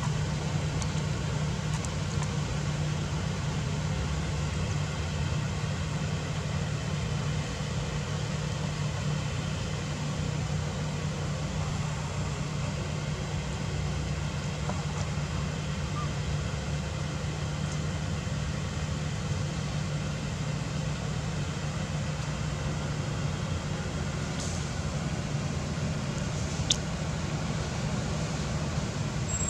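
Steady low hum of a vehicle engine idling, with an even hiss above it and one short sharp tick near the end.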